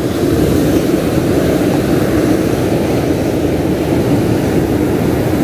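Steady low roar of wind buffeting the microphone over rushing beach surf, with no break or change.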